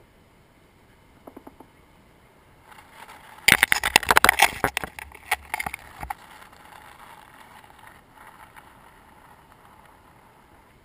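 Ghost crab's legs tapping and scraping on the camera housing: a few faint clicks about a second in, then a rapid, loud run of scratchy clicks for about two and a half seconds starting a few seconds in.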